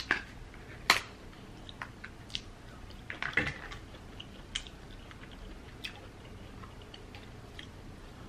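King crab leg shell cracked and pulled apart by hand: sharp cracks at the start and about a second in, more in a cluster past three seconds, with small wet clicks and chewing in between.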